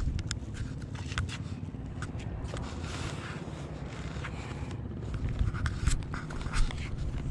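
Fishing rod and reel being handled and cast: a scatter of sharp clicks and ticks in the first second or so, then rasping, zipper-like scrapes of line and reel in the middle and again near the end. A steady low rumble of wind on the microphone runs underneath.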